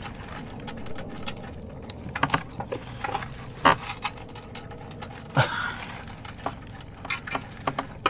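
Plastic bag crinkling and cardboard rustling as a wrapped box is pulled out of a shipping carton, with irregular clicks and a few sharper ticks.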